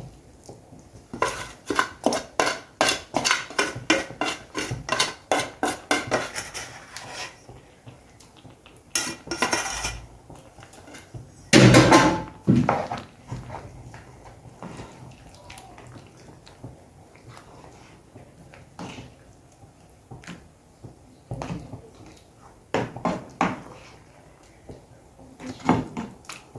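A metal spoon knocking and scraping against a pot as chicken is stirred into a coconut curry sauce: a quick run of knocks for several seconds, a louder clatter a little before halfway, then occasional knocks.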